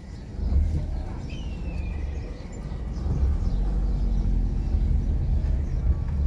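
Outdoor street ambience dominated by a steady low rumble, with faint background clutter and a short falling whistle-like call about a second in.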